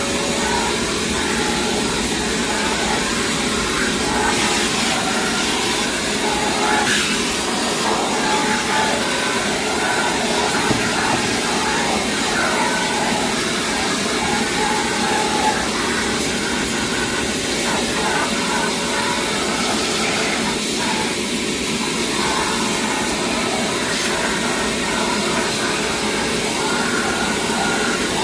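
Craftsman 2.5-gallon shop vac running steadily with a constant motor whine. Its suction noise shifts as the nozzle is moved around inside a 3D printer.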